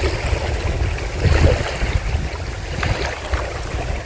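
Wind buffeting the microphone in an uneven low rumble over a steady hiss, with a few light knocks.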